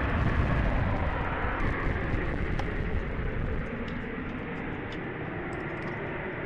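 Steady jet aircraft noise on an airfield apron, a wide rumble with no clear tone, easing a little about three and a half seconds in.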